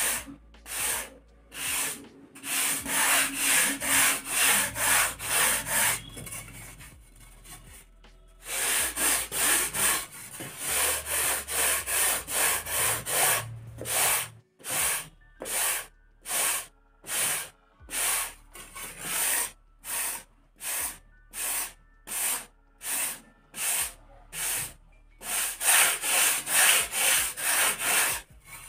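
Sandpaper on a wooden sanding block rubbed back and forth along the edge of a thermocol (expanded polystyrene) foam wing, about two scraping strokes a second with a short pause partway through. The foam edge is being rounded into an airfoil shape.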